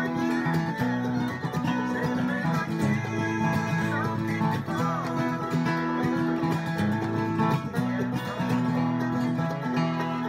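Bluegrass music led by an acoustic guitar played with a capo. Held low notes sound under it, and a few sliding higher notes come in about four to five seconds in.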